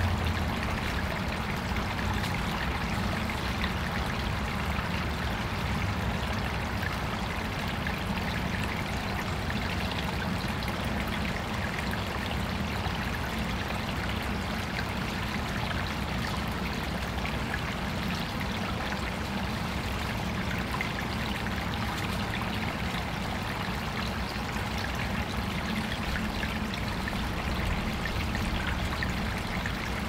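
Water trickling and pouring steadily in a small artificial backyard stream, with a steady low rumble underneath.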